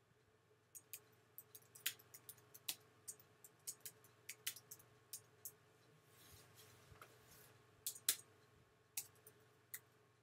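Faint typing on a computer keyboard: irregular keystroke clicks as a few words are typed, with a short pause between them.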